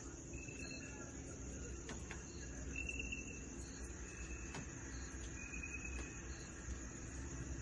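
Night insects, crickets by their sound, keeping up a steady high trill, with short chirps at a lower pitch repeating about every second or so.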